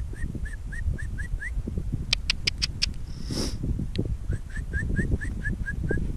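An animal calling: a run of short, high, rising chirps at about four a second, then a second run starting a little past the middle. A few sharp clicks fall between the runs, over a steady low rumble.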